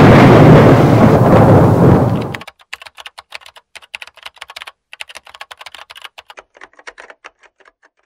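A loud, dense rumble of noise cuts off about two and a half seconds in. Rapid, uneven keyboard-typing clicks follow, with a short break just before the five-second mark, as a sound effect for on-screen text being typed out.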